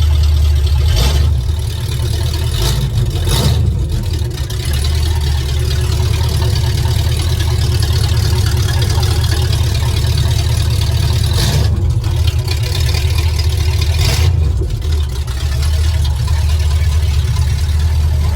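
Truck engine idling steadily, with a few short knocks over the top.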